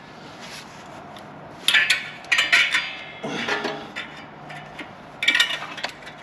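Metal parts of the exhaust clinking and clanking as they are worked loose and handled, with a short ringing after each knock. It comes in several brief clusters: about two seconds in, again around three and a half seconds, and near five seconds.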